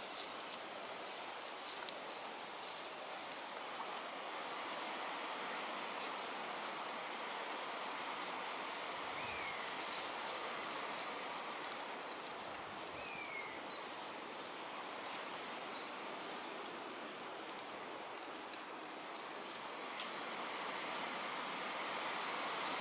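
A songbird repeats a short song phrase, a few high descending notes ending in a brief trill, about every three to four seconds. Behind it runs a steady outdoor hiss.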